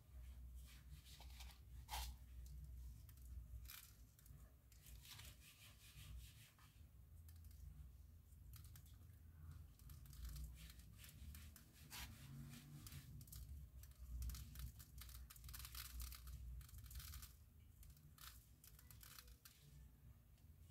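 Faint, scattered rustling and light clicking of craft materials being handled, with a couple of sharper clicks.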